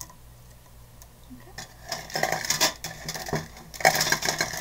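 Rummaging clatter of small hard art supplies handled by hand. It starts about a second and a half in and comes in two busy spells of quick clicks and rattles.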